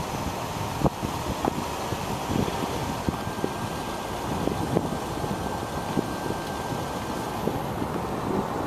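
Steady vehicle road noise and wind on the microphone while driving slowly, with scattered light knocks and rattles.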